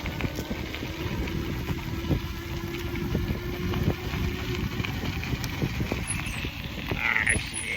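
E-bike ridden at speed under throttle: steady wind buffeting on the phone's microphone and knocking over rough ground, with a steady electric motor whine for the first five seconds or so.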